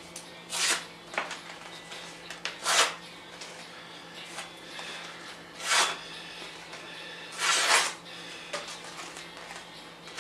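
Hewing axe head being sharpened by hand: about five rasping strokes of a file or stone across the steel, each lasting about half a second to a second and spaced a second or more apart.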